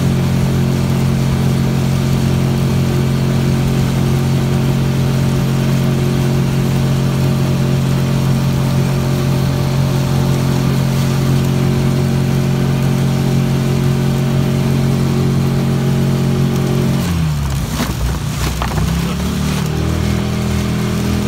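Small outboard motor running steadily at one constant pitch. About seventeen seconds in it is throttled back, with a few knocks, and runs on at a lower pitch.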